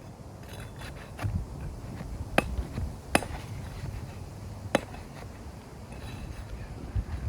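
Three sharp hammer strikes, spaced a second or more apart, with a few lighter knocks before them, over a steady low rumble.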